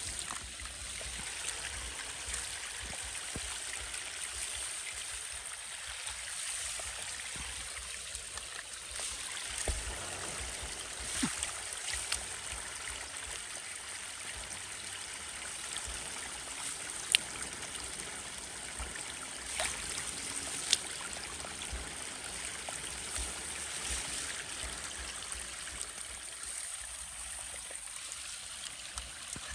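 Water running steadily, with a few sharp taps or splashes scattered through it.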